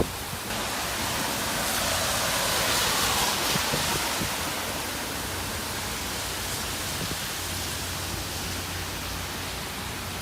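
Typhoon wind and rain making a steady rushing noise, which swells in a gust a couple of seconds in and then eases.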